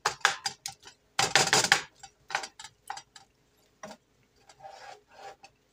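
Wooden spoon stirring chopped ham and mushrooms in a frying pan: a quick run of clicks and scrapes against the pan, with a longer scrape about a second in, easing to softer stirring near the end.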